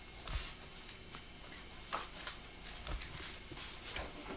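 Faint, scattered light knocks, taps and rustles of things being handled and moved about, over a steady hiss.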